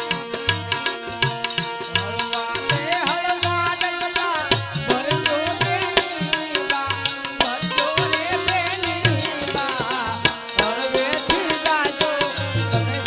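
Live Indian folk music: hand drums keep a steady beat under a held drone, with a wavering melody line coming in about two seconds in.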